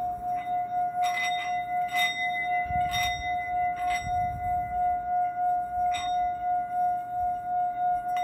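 Singing bowl ringing in one steady tone that swells and fades in a slow wobble, with five light clinks against it in the first six seconds.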